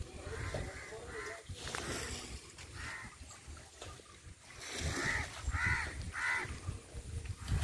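Crows cawing: a series of harsh caws, with three in quick succession in the second half.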